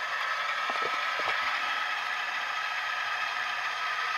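Model GE Gevo diesel locomotive with a Tsunami sound decoder, its diesel engine sound played through the model's small speaker with little bass, over the whir of the model's drive as it rolls along the track.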